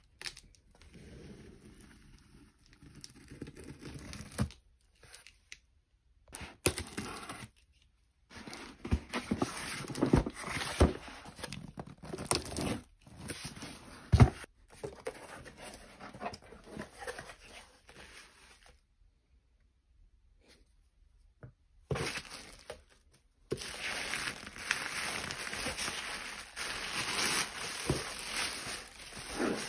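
Packing tape on a cardboard box being sliced with a safety box cutter and torn open, with sharp knocks as the cardboard flaps are handled. After a short pause about two-thirds of the way through, tissue paper crinkling as it is unfolded.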